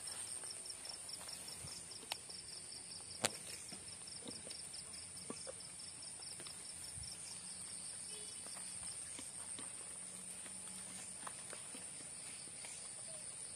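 Night insects: a steady high-pitched drone of crickets, with a second, fast pulsing chirp that stops about halfway through. Two sharp clicks come about two and three seconds in.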